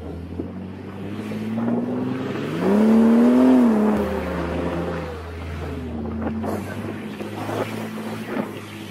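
Off-road vehicle engine running while driving a sandy dirt trail. It revs up about two and a half seconds in and eases back off around five seconds, with wind buffeting the microphone.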